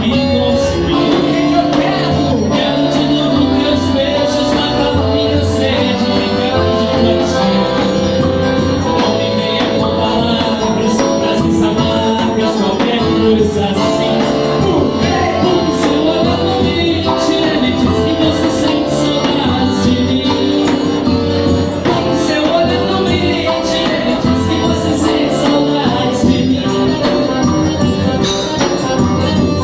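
Live band playing dance music with a steady beat, a repeating bass line and light percussion.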